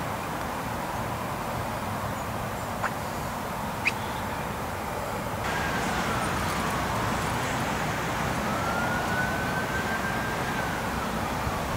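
A distant siren wailing slowly, its pitch falling, then rising, holding and falling again over several seconds. It sits over a steady wash of outdoor noise that gets louder about halfway through.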